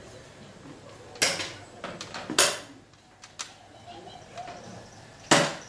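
Sharp clacks of hard xiangqi pieces being handled and set down on the wooden board and table: three loud ones, about a second in, about two and a half seconds in and near the end, with a few softer clicks between.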